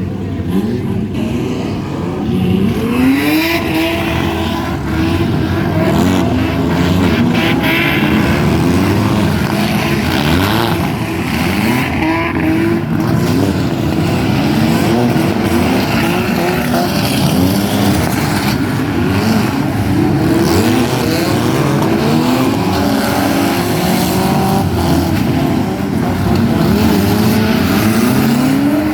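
Several demolition derby cars with their engines revving hard at once, the engine notes repeatedly rising and falling over one another, with an occasional knock.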